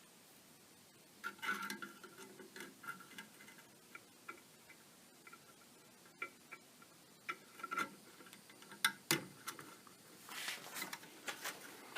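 Irregular clicks, taps and scrapes of hands working on an opened air conditioner's fan, loosening it to shift it away from the styrofoam housing it rubs against. There are several sharper clicks about nine seconds in, and a denser stretch of rustling near the end.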